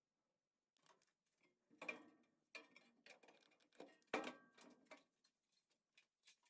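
Faint, irregular clinks and knocks of hand work on the sheet metal of a vehicle floor, with the sharpest knock about four seconds in.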